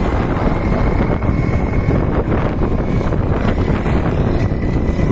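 Wind buffeting the microphone, with the faint high engine note of racing karts running in the distance.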